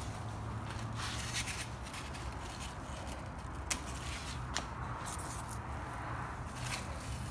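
Hands brushing and handling cucumber vines and leaves, a light rustling and scraping with a sharp click about halfway through, over a steady low hum.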